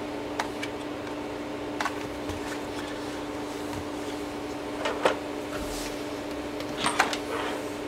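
A few light clicks and handling noises as wire connectors are fitted into a plastic control box, over a steady low electrical hum.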